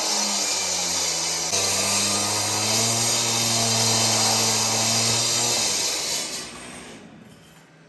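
Concrete saw running steadily as it cuts through a concrete slab floor, its pitch shifting a little with the load, then dying away about six seconds in.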